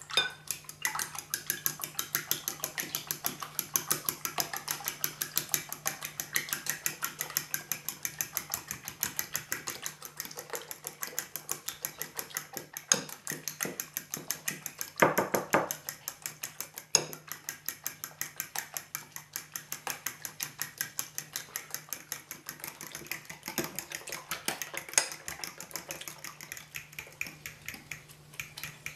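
Eggs beaten with a metal fork in a glass bowl: a fast, even rhythm of the fork clicking against the glass as it whisks through the liquid egg, with a few louder knocks partway through.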